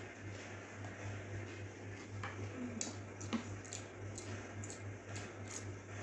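Soft, irregular mouth clicks and smacks of someone eating with their hands, with one sharper click about three seconds in, over a steady low hum.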